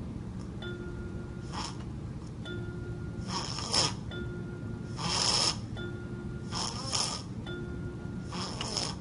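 A sleeping baby snoring in a slow, even rhythm: a hissing snore about every 1.7 seconds, five in all, with a thin steady high tone in the pauses between them.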